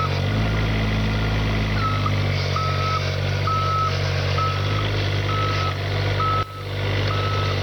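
Kubota excavator's diesel engine running under load with its travel alarm beeping about once a second as it reverses. The engine note shifts briefly about half a second in, and the beeping picks up again about two seconds in.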